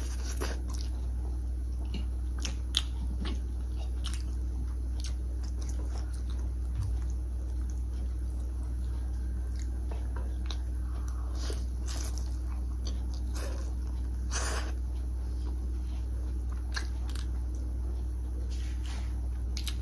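Close-up eating sounds of children eating chow mein noodles and momo: chewing, biting and mouth smacks with scattered short clicks and taps, over a steady low hum.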